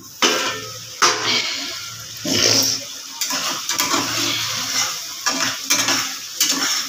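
Two sharp clanks of a lid and aluminium pot in the first second, then a metal spoon stirring and scraping around inside the pot of kofta and potato curry.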